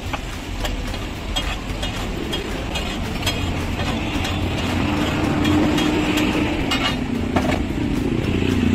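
Steady street noise with vehicle engines running, broken by a few sharp clicks of a spatula knocking on a large flat griddle.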